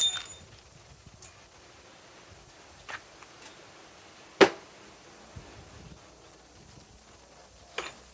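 Four sharp, separate knocks and clacks of hard objects being handled, the loudest about halfway through; the first one rings briefly. No tool motor runs.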